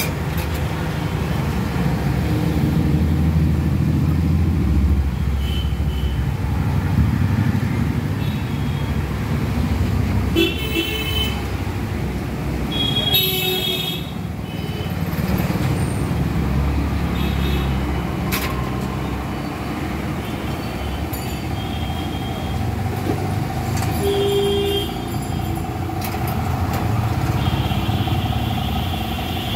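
Road traffic: engines running steadily, with car and motorbike horns tooting again and again.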